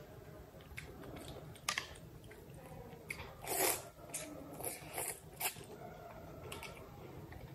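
Close-up eating of thukpa noodle soup with chopsticks: chewing and slurping, loudest about three and a half seconds in as a mouthful of noodles is sucked up, with a few short sharp clicks between.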